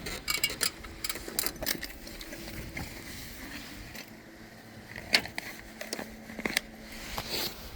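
Irregular scrapes, taps and clicks of hands and tools handling asphalt roof shingles, the sharpest about five seconds in.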